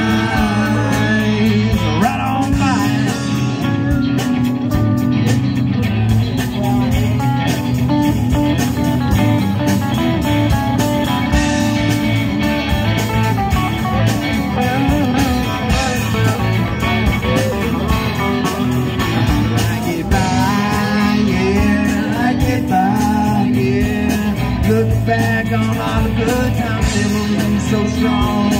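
Live band playing a guitar-led instrumental break of a bluesy rock song, with bass and a steady drum beat.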